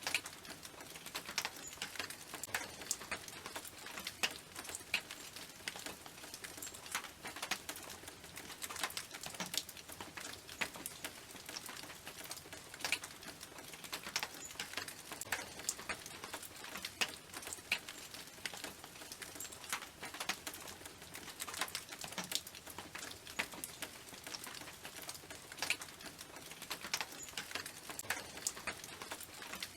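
Rain falling on a tin roof: a steady hiss of rain with many irregular, sharp drops ticking on the metal.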